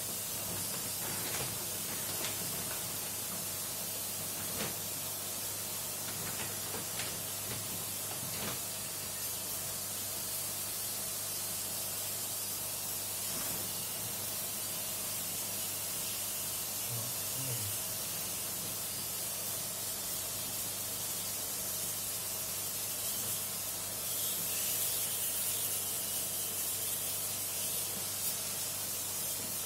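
Water spraying in a steady hiss while the indoor air-conditioner unit is washed, over a steady low hum, with a few light knocks; the spray gets louder for a few seconds near the end.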